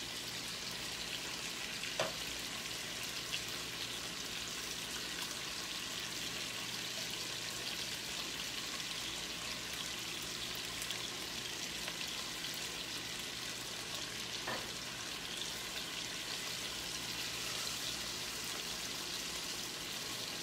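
Boneless chicken thighs searing in butter and olive oil in a skillet, a steady sizzle. A sharp tick sounds about two seconds in and another about two-thirds of the way through.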